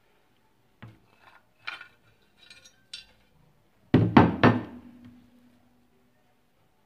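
Light knocks and scrapes as pieces of meat are slid off a ceramic serving plate, then about four seconds in the plate is set down on the table with three quick clatters and a short ring that fades away.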